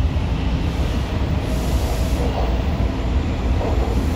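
TTC T1 subway train heard from inside the car as it accelerates out of a station: a steady low rumble of wheels on rail with running noise from the motors and car body.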